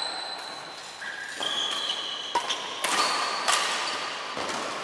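Badminton rally: rackets strike the shuttlecock with several sharp pops, echoing in a large hall, with brief high squeaks from shoes on the court floor between the strikes.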